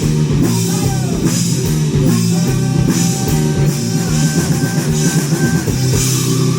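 Live rock band playing loudly: drum kit with regular cymbal crashes, bass and sustained distorted guitar, without vocals.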